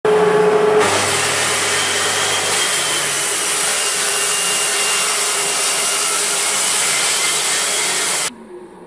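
Circular saw cutting through a thick timber board. The motor whines at full speed for under a second before the blade bites, then the cut runs loud and steady, and the sound drops away suddenly near the end.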